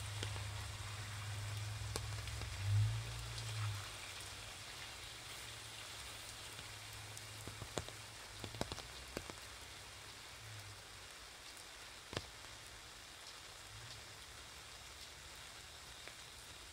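Steady rain pattering on an umbrella and wet pavement, with a few louder single drops striking now and then. A low rumble swells briefly about three seconds in.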